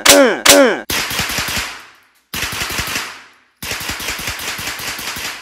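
Heckler & Koch MP5 9mm submachine gun, fitted with a muzzle suppressor, firing three short bursts of rapid full-automatic fire. Each burst dies away in echo.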